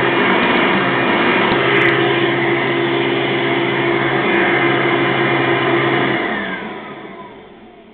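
Hoover Soft and Light Supreme upright vacuum running steadily, then switched off about six seconds in, its motor whine falling in pitch as it spins down.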